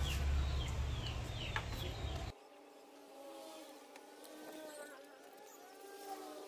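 Outdoor background: a loud low rumble with quick repeated high chirps that cuts off abruptly about two seconds in, then quieter ambience with an insect buzzing whose pitch wavers.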